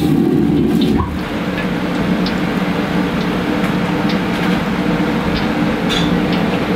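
Commercial gas wok burner on a hawker stall stove running with a steady low rumble, easing slightly about a second in, with a few light metal clinks from the utensils.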